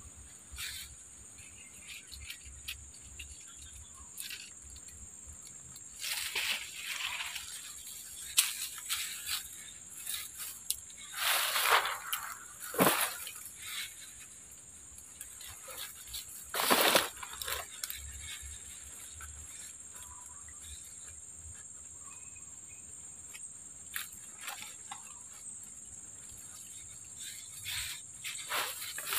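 Steady high-pitched drone of swamp insects, with several brief rustling swishes of movement in the waterside vegetation.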